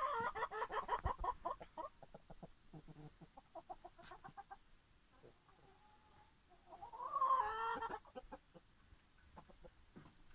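Chickens clucking: a loud, rapidly pulsing call at the start, a run of short clucks, and a second loud drawn-out call about seven seconds in.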